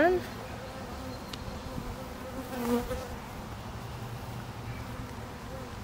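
Honeybees buzzing in a steady hum around an opened hive, a colony upset by the hive being worked; the buzz swells louder for a moment about two and a half seconds in.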